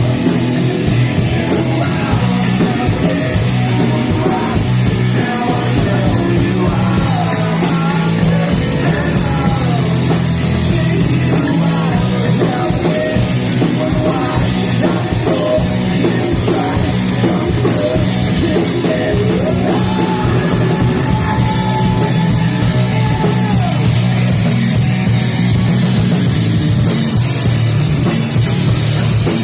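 Rock band playing loud, with electric guitars, bass and drum kit; a melodic guitar line bends and slides over a steady low note, with no words sung.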